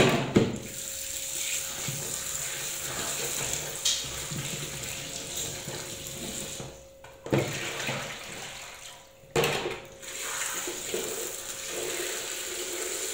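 Kitchen tap running into a plastic basin while frozen chicken drumsticks are rinsed by hand to wash the ice off them. The flow breaks off briefly twice, about seven and nine seconds in, each time followed by a sharp knock.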